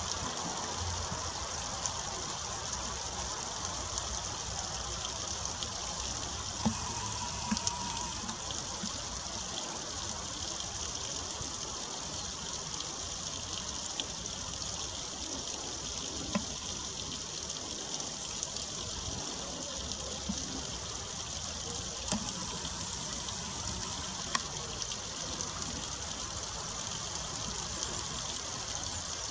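Small trickle of water splashing steadily down over rocks, with a few faint clicks here and there.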